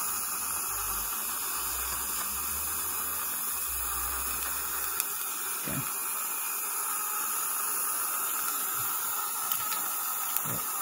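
Steady hiss of dental suction drawing air through the Nola dry-field retractor and its tubing. A low hum runs beneath it for the first few seconds.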